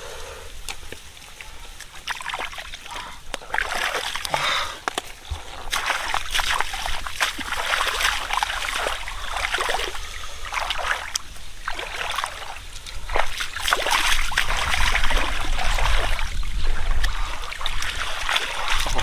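Splashing and sloshing in shallow muddy water as a person wades barefoot and gropes through it by hand, in irregular splashes that start after the first couple of seconds and keep going.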